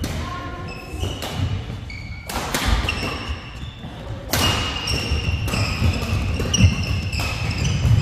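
Badminton rally: repeated sharp racket-on-shuttlecock hits, short high shoe squeaks on the court floor and thudding footsteps, with more play from neighbouring courts mixed in.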